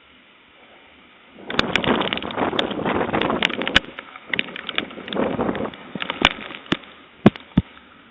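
A tree snapping in high winds: a dense burst of cracking and splintering wood from about a second and a half in, lasting about four seconds, then scattered cracks and two sharp snaps near the end.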